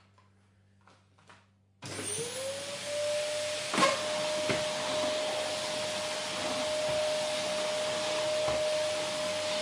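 A few faint clicks, then about two seconds in a vacuum cleaner switches on: its motor whine rises quickly and settles into a steady hum over the rush of air. A single sharp click comes shortly after it starts.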